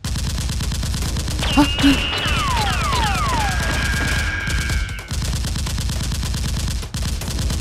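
Rapid automatic-gunfire sound effect, a continuous rattle of shots that breaks off briefly twice. Several falling whistles sound between about one and a half and three and a half seconds in.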